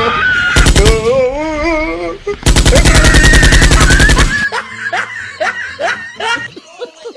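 Fake machine-gun fire sound effect in rapid bursts: a short burst about half a second in and a longer burst of about two seconds from the middle, with a warbling, wavering pitched sound between them. After the gunfire stops, a run of short falling-pitch sounds.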